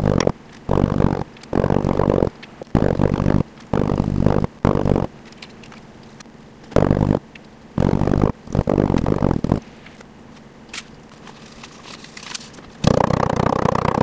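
A small hammer crushing and grinding match heads against a metal block, in about a dozen short grinding strokes that come in irregular groups with a long pause in the middle. About a second before the end, a longer continuous sound begins.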